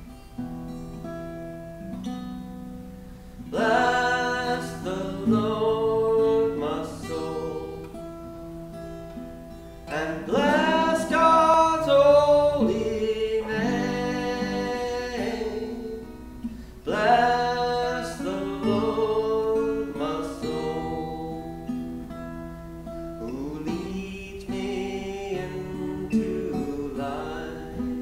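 A man singing a song to his own strummed acoustic guitar. The guitar plays alone for the first few seconds, then the voice comes in and sings in phrases over it.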